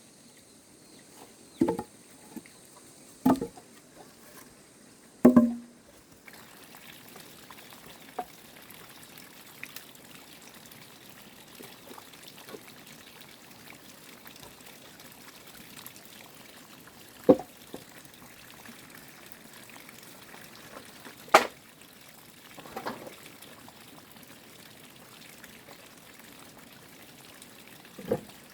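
Three sharp knocks like chopping blows in the first few seconds, then water running or trickling steadily, broken by a few single knocks.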